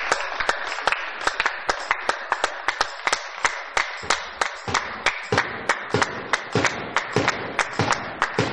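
Spectators' applause dying away after a point, with steady rhythmic clapping at about three beats a second carrying on throughout.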